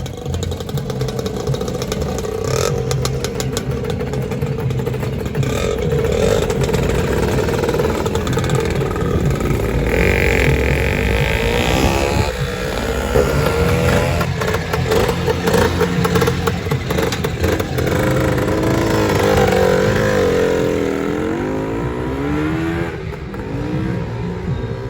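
Two-stroke Lambretta scooters pulling away and riding past one after another, their engines revving up and falling back over and over, several at once.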